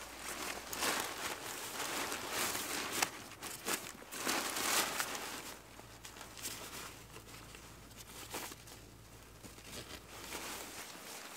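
Rustling and crinkling of a fabric stuff sack and backpack being handled and packed, busiest in the first half and thinning to a few soft rustles and small clicks later on.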